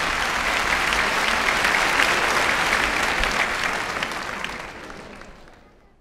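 Audience applauding, heard from a vinyl LP recording of a live folk-song performance; the applause fades out near the end.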